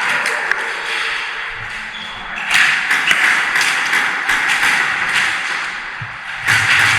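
Airsoft guns shooting, heard as irregular sharp taps and pings of BBs striking hard surfaces over a steady hiss. The clicks cluster near the start and again around the middle.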